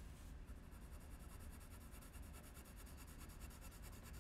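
Faint scratching of a coloured pencil held sideways, shading back and forth on drawing paper.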